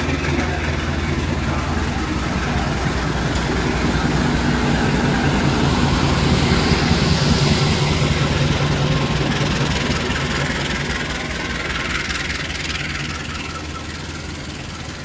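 Diesel-electric locomotive engine running with a steady low drone. It grows louder to a peak about seven seconds in, then fades.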